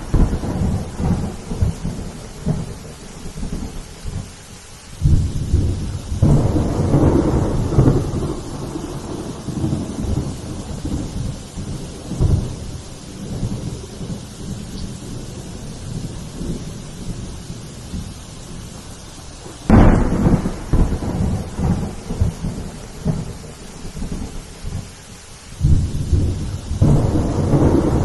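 Steady heavy rain with thunder: a long low rumble starts about five seconds in, a sharp clap comes about twenty seconds in, and another rumble builds near the end.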